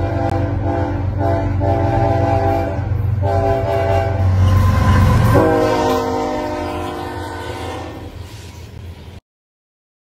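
Approaching diesel locomotive sounding its multi-note air horn in a series of long and short blasts over a low engine rumble. The final long blast drops in pitch about five seconds in as the locomotive passes, then fades. The sound cuts off abruptly about nine seconds in.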